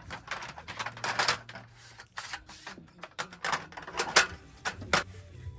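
Wooden slats of a roll-up camping tabletop clacking and knocking against each other and the folding metal frame as the top is unrolled and laid in place. It makes a run of irregular sharp clicks, with a denser clatter about a second in and single loud knocks near four and five seconds in.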